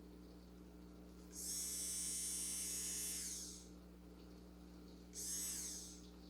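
Medicool Pro Power 20K nail drill handpiece whining at high speed for about two seconds, then winding down, followed a second and a half later by a shorter spin that also dies away. The drill is cutting in and out, which the owner puts down to a cord broken inside the handpiece cable.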